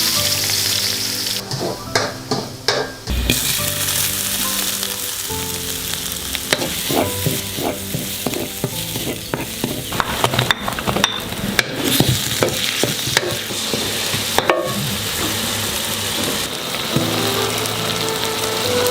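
Hot oil sizzling steadily as food fries in a pan, with scattered sharp clicks of a utensil against the pan.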